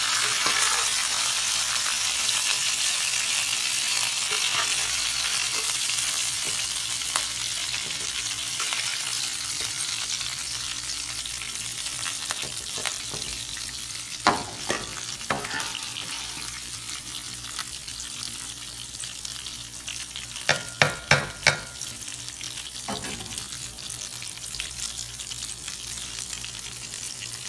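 Chicken frying in hot oil with a steady sizzle that slowly dies down. A few sharp knocks of a utensil on the pan about halfway through and four quick knocks later on.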